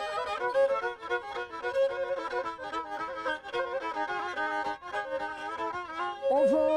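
Black Sea kemençe bowed in quick, ornamented runs of short notes. Near the end it settles into a long held note.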